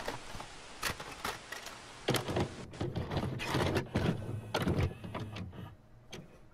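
Video-cassette recorder sound effect: a hiss of tape static that fades out over the first two seconds, then a run of mechanical clicks and heavy clunks of a cassette being loaded and set to play, dying down near the end.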